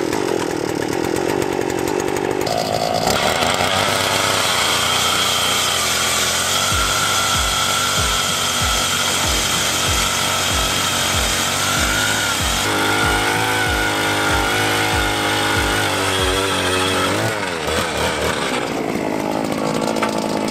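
Gas-powered ice auger engine running at high speed. Its steady note dips and eases off near the end.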